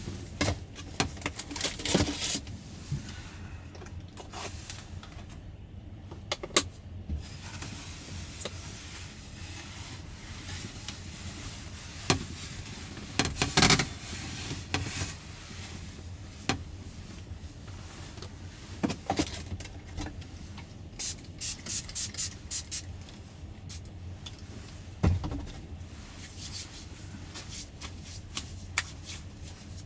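Close handling noises, rubbing and scraping with scattered clicks and a quick run of ticks, over a steady hiss of rain on the camper.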